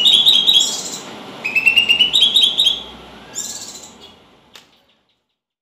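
A songbird singing three quick phrases of rapid repeated chirps, the middle phrase stepping up in pitch, dying away near the end.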